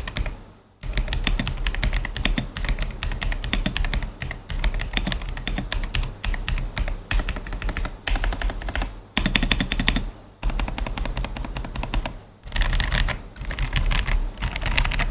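Typing on an Ajazz AK820 V2 mechanical keyboard fitted with its stock yellow tactile switches: rapid runs of keystrokes with a few short pauses.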